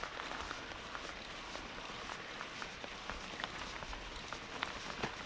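Gravel bike tyres rolling through loose sand, a steady gritty hiss with scattered small ticks of sand and grit, the tyres run at low pressure.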